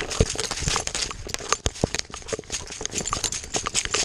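A dog running through dry grass and brush, heard close up from a camera strapped to its body: a quick, uneven run of footfalls with crackling and scraping as dry stalks and twigs brush past.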